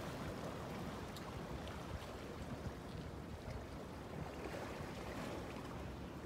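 Steady outdoor ambience of wind and sea water washing against the shore, with a few faint ticks.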